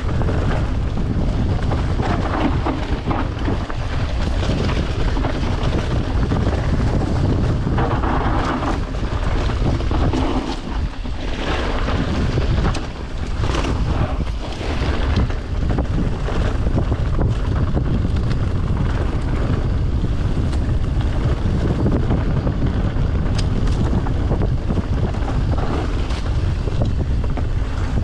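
Wind buffeting the microphone of a camera on a moving mountain bike: a loud, steady rumble with scattered knocks and rattles from the ride over the trail.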